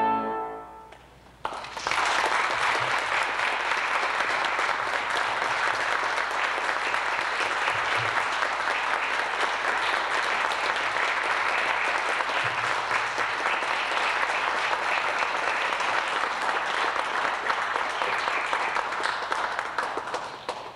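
The final trombone and piano chord dies away in the first second. About a second and a half in, an audience starts applauding steadily, and the applause thins out near the end.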